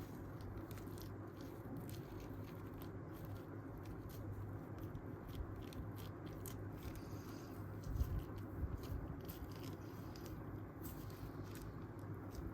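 Creaky chair: scattered small creaks and clicks over a steady low hum, with a louder low bump about eight seconds in.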